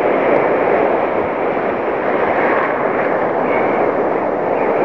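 Ocean surf breaking on a beach: a steady, loud rush of waves and foam.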